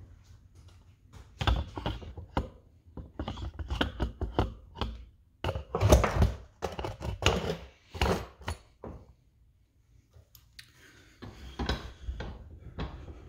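Metal tools and shock parts being handled on a workbench and set in a bench vise: a run of clanks and knocks, a short lull, then more knocking near the end.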